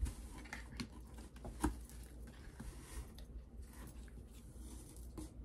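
Plastic tubes of body cream being handled and set down into a storage bin: a few light knocks and rustling, the loudest knock about one and a half seconds in.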